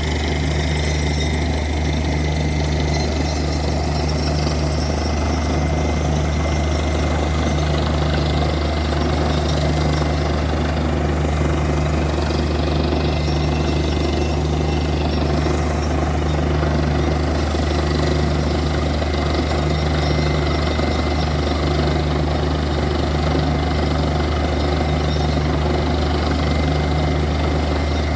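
Borewell drilling rig running steadily: a loud, unbroken engine drone with dense mechanical noise over it.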